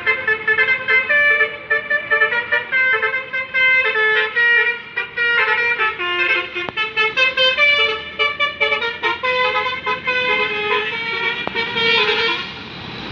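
Bus telolet horn, a multi-tone air horn, playing a quick run of short changing notes like a tune. It stops near the end, leaving the steady noise of the bus's engine.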